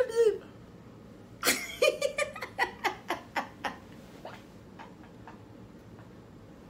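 A held vocal note falls in pitch and stops just at the start. About a second and a half in comes a burst of laughter: quick pulses, about four or five a second, that fade over about two seconds, with a few faint ones after.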